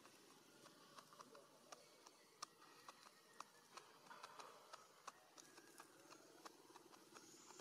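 Near silence: quiet outdoor ambience with faint, irregular small clicks and ticks scattered throughout, and a faint low hum in the last couple of seconds.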